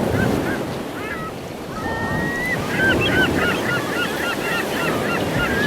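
A flock of birds calling, many short squawks overlapping and growing busier about halfway through, over a steady rushing noise like surf.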